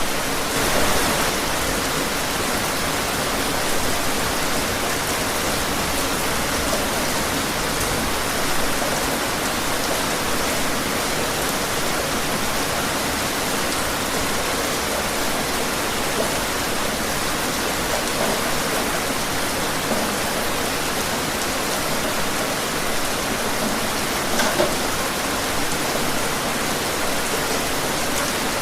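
Steady heavy rain falling outdoors and hitting surfaces, a dense even hiss with the odd louder drop now and then.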